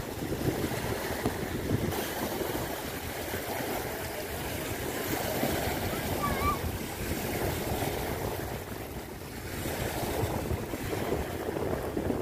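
Small waves washing in and breaking on a shore of crushed dolomite, with wind buffeting the microphone.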